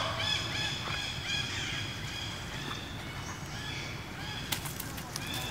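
Baby macaque giving a run of short, high-pitched squealing calls, each held at a steady pitch, with a few sharp clicks near the end.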